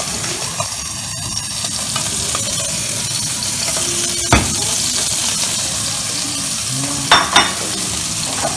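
Food sizzling in oil in a nonstick frying pan, a steady hiss. A sharp knock about four seconds in and two quick knocks near the end.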